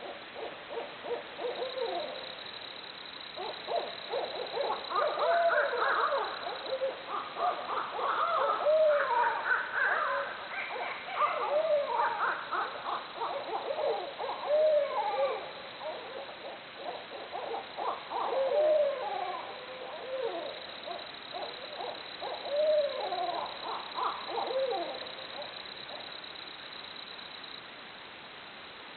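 Barred owls hooting over one another in a long, loud chorus of arched hoots and rapid cackles, their wild 'jungle noises'. The chorus starts about a second in and dies away a few seconds before the end, leaving a faint hiss.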